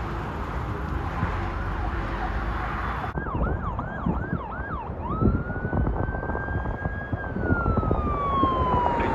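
Siren of a fire department ambulance (Medic 57) running on a call, over steady road noise. About three seconds in, it gives five quick rising-and-falling yelps, then switches to a long wail that climbs, holds and slowly falls.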